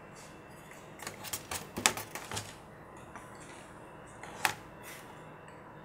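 A quick run of light clicks and knocks as a large computer motherboard is handled and repositioned on the bench, then a single click about four and a half seconds in.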